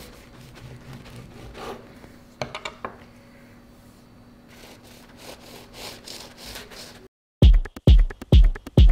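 A knife sawing and scraping on a crusty loaf of freshly baked French bread, soft rubbing with a few sharper crackles about two and a half seconds in. About seven seconds in the sound cuts to a moment of silence, and loud electronic music with a heavy beat starts.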